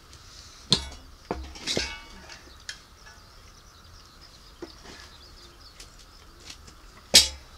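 Metal clinks and knocks as a stripped-down Shindaiwa EG16 generator engine's block and crankshaft are handled and shifted on the ground: a few sharp knocks early on, with the loudest clank near the end.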